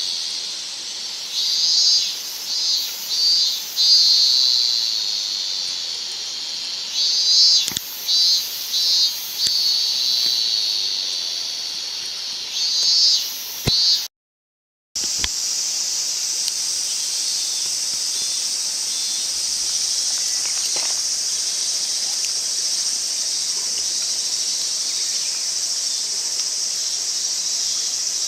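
Insects calling: a high, buzzing chorus that comes in pulsing bursts at first. The sound cuts out completely for about a second halfway through, then resumes as a steadier, slightly higher buzz, with a few faint clicks.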